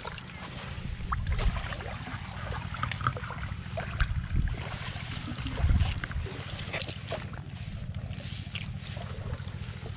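Wet rustling, trickling and small clicks of hands sifting through mud and water hyacinth in a plastic tarpaulin net, picking out fish, over a steady low rumble.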